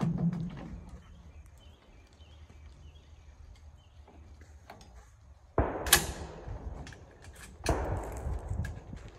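Two shotgun shots about two seconds apart, each fading out over about a second.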